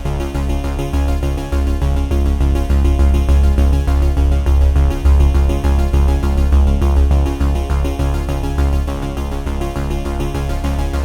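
Background electronic music with synthesizer tones and a steady, pulsing bass.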